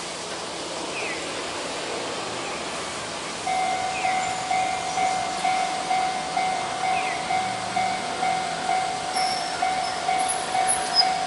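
Japanese railway level-crossing alarm, a Toho Denki Kogyo electronic warning bell, starts about three and a half seconds in and rings a steady single-pitched ding about twice a second. It signals an approaching train and the crossing barriers coming down.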